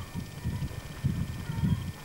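Irregular low rumbling and buffeting on a camcorder microphone, filmed from a moving vehicle on a dirt farm track, loudest near the end.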